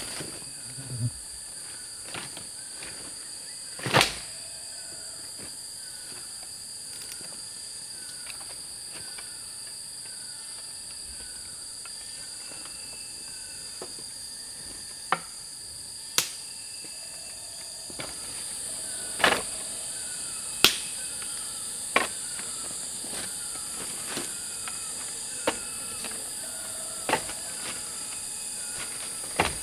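Steady high-pitched insect chorus of crickets, with a short falling chirp repeating about three times every two seconds. About eight sharp knocks are scattered irregularly through it and stand out as the loudest sounds.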